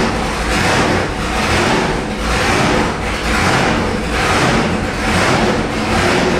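Roots-supercharged 572 cubic inch big-block Chevrolet V8 running at idle, around 1,300 rpm with no load on the engine dyno. The sound rises and falls in a steady rhythm about once a second.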